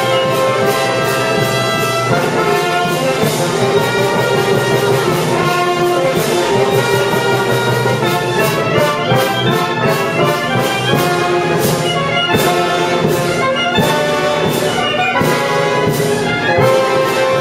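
An Italian concert wind band playing live, with brass to the fore, in steady held chords and moving lines.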